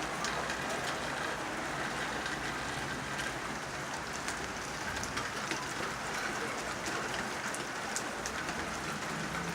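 Steady rain falling, with scattered individual drops tapping close by.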